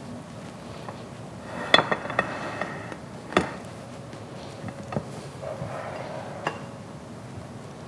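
Plates and cutlery clinking and knocking on a countertop: a handful of sharp clinks, each with a brief ring. The loudest comes just under two seconds in, with another at about three and a half seconds and a few softer ones later.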